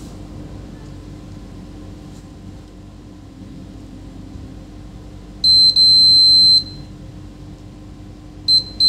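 CD800 digital multimeter's continuity buzzer beeping as its probes bridge a low-resistance path on the SSD board. A steady high beep comes in about five seconds in and lasts just over a second with a short break. A quick blip and a longer beep follow near the end.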